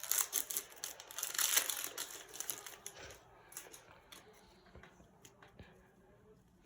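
Foil wrapper of a Donruss football card pack crinkling and tearing as it is opened, busiest in the first three seconds, then lighter scattered clicks and taps of the cards being handled.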